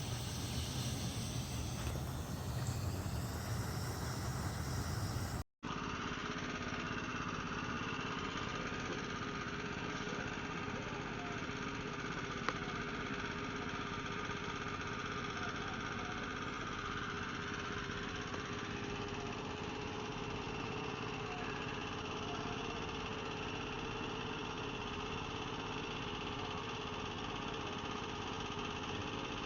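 Lawn mower engine running steadily, with a brief dropout about five seconds in.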